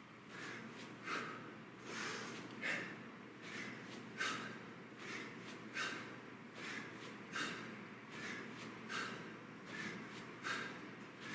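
A person's sharp, forceful breaths, about one every 0.8 seconds in a steady rhythm, the power breathing that keeps time with kettlebell swings.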